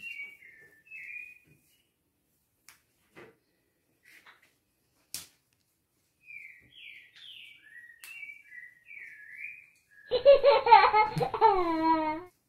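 Faint bird chirps in short bursts, with a few small handling clicks. Near the end, about two seconds of a child's pitched, falling voice, the loudest sound.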